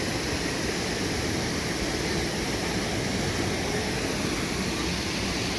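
Water of a mountain valley stream rushing, a steady even noise.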